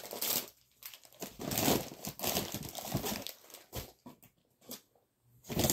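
Crinkling and rustling of grocery packaging as it is handled, in irregular bursts, with a lull of about a second near the end.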